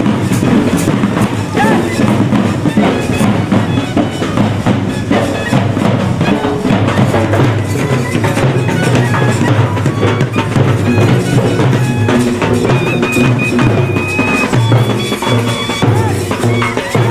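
Dollu barrel drums played by a folk drum group in a steady, dense rhythm.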